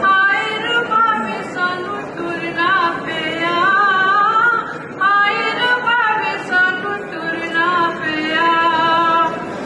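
A woman singing a folk song solo into a microphone, without instrumental accompaniment, in long held notes that waver and glide.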